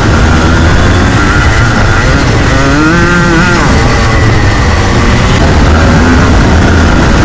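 Junior Rotax two-stroke kart engine running at speed over a heavy rumble, its pitch rising then falling again about three seconds in as the revs climb and drop.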